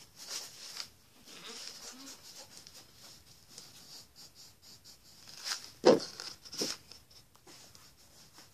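Faint scratching of a pen writing on paper at a desk. About six seconds in comes a short, loud vocal sound from a child, with a weaker one just after it.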